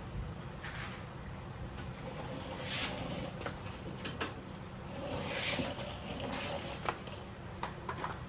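Scraping and shuffling of parts being handled and fitted, with two longer swishes and a few light clicks, over a steady low hum.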